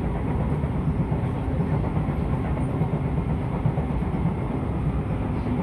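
Running noise inside a Siemens C651 metro car at speed: a steady rumble of wheels on rail. The car's wheels have flats.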